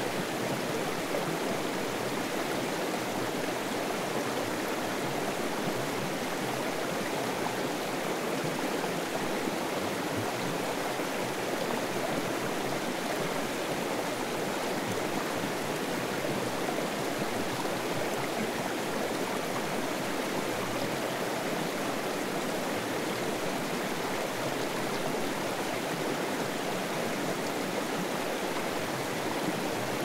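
Running water of a stream spilling over small waterfalls: a steady, even rush with no breaks.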